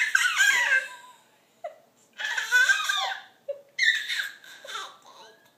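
Baby laughing and squealing in three high-pitched bursts.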